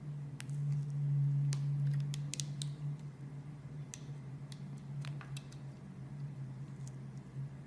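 A blade cutting through a bar of soap, giving a run of sharp, crisp clicks and crackles, over a steady low hum.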